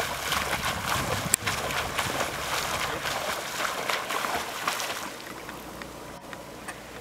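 Irregular splashing of a swimmer's front-crawl strokes in open water, dying away about five seconds in as he stops stroking. One sharp crack stands out about a second and a half in.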